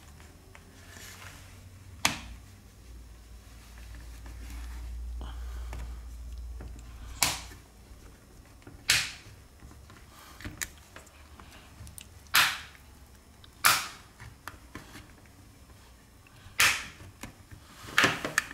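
Plastic opening pick clicking and snapping against the edge of a smartphone as it is worked around the seam to pry the screen from the frame: about seven sharp clicks, spaced a second or more apart.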